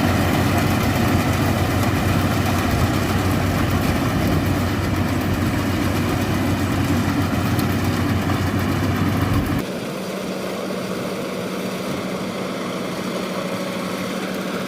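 Yanmar AW82V combine harvester's engine running steadily with a deep rumble. About two-thirds of the way through, the low rumble cuts off abruptly, leaving a quieter steady hum.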